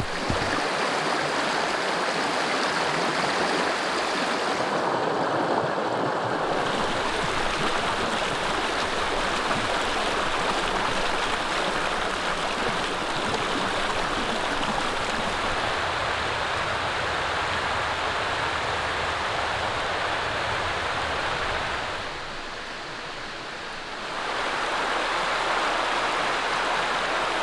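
Mountain stream rushing over rocks: a steady, even rush of water that dips quieter for a couple of seconds near the end.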